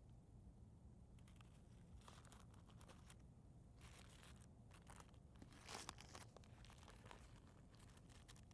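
Faint irregular crinkling and rustling, a little stronger just past halfway.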